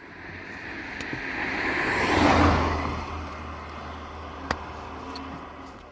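A motor vehicle passing by: its engine hum and tyre noise grow louder, are loudest a little over two seconds in, then fade away. A single sharp click comes about four and a half seconds in.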